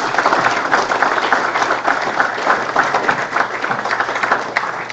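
An audience applauding: many hands clapping at a steady level.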